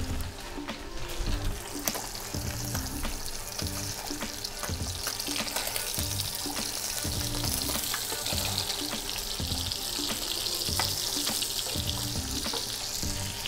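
Hake fillet frying in foaming butter and oil in a frying pan, a steady sizzle that swells through the middle, with a few light clicks as the fish is turned.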